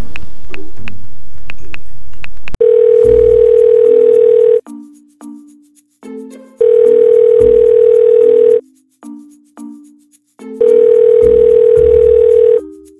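Background music, then about two and a half seconds in a telephone ringback tone starts: a steady two-second tone that repeats three times, about four seconds apart, over the quieter music, as a call is placed.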